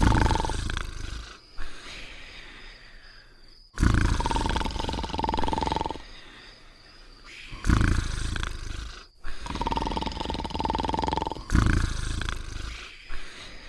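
Cartoon snoring sound effects: loud, deep rumbling snores coming in repeated rounds with short pauses between. Several snores carry a steady whistling tone on top.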